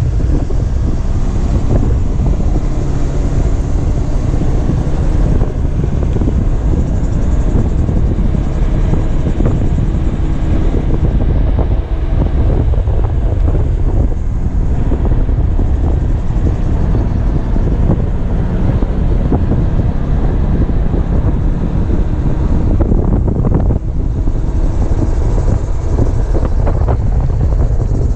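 Heavy wind rushing over the microphone while riding, with the Kymco Xciting 250i maxi-scooter's single-cylinder engine running steadily underneath at road speed.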